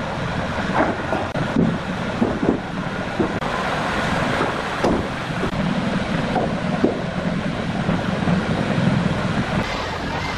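Steady machine-like running noise, with scattered short knocks as wooden stair treads are pressed down by hand and stepped on.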